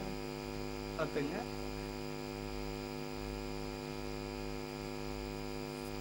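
Steady electrical mains hum with a ladder of overtones running under the audio. A short vocal sound comes about a second in.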